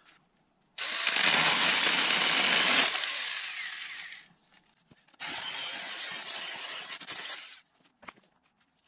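A cordless Saker mini chainsaw runs and cuts brush for about two seconds, then winds down. A second, quieter stretch of rough noise follows midway. Insects trill steadily in the background.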